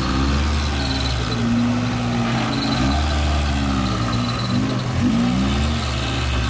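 Engine of a small off-road car running at low revs as it creeps onto a log obstacle, its low note swelling and easing every second or two as the throttle is worked.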